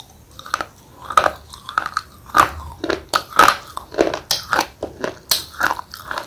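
Thick slate pencil being bitten and chewed: a string of sharp, dry crunches, about two a second at irregular spacing, with softer grinding between them.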